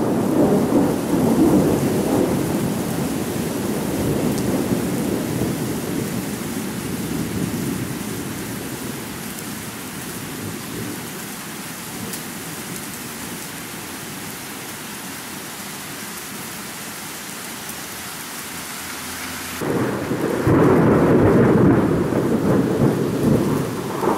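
Thunderstorm: steady rain hiss with rolling thunder. A heavy rumble at the start dies away to mostly rain, then a new loud thunder rumble breaks in suddenly near the end.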